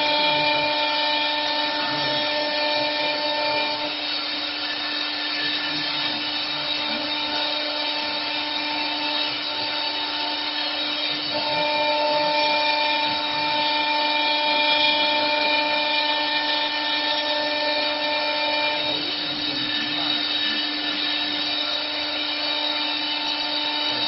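CNC wood lathe's high-speed engraving spindle running with a steady whine as its bit carves spiral grooves into a turned wooden spindle on the rotary axis. A higher tone comes in and drops out twice, each time for several seconds.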